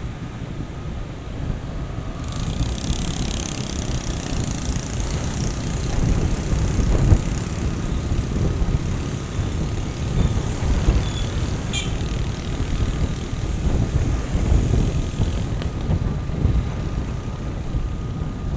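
Wind rumbling on the microphone and road noise during a bicycle ride, with a brighter hiss that comes in about two seconds in and drops out near the end.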